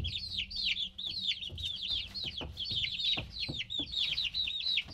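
Baby chicks peeping: a busy chorus of high, downward-sliding peeps, several a second and overlapping, over a low steady hum.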